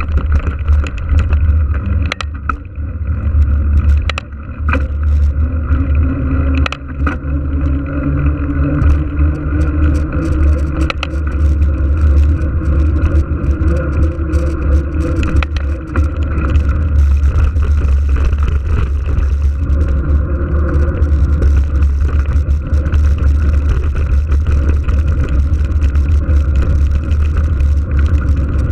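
Steady low wind buffeting and rolling rumble on the microphone of a camera riding along on a mountain bike, with scattered clicks and rattles from the bike over the road surface.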